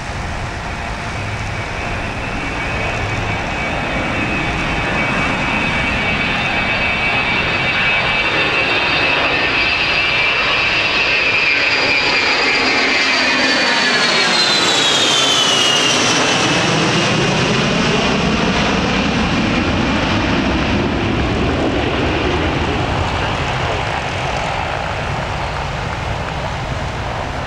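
Boeing E-3 Sentry's four TF33 turbofan engines on a low flyby: a steady jet noise with a high whine that grows louder as the aircraft approaches. The sound peaks about halfway through as it passes overhead, and the whine then drops in pitch as it moves away.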